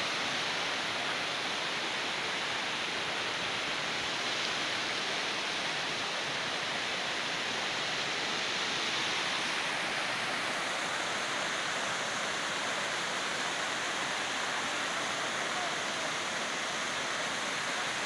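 Waterfall cascading over rocks: a steady rush of falling water.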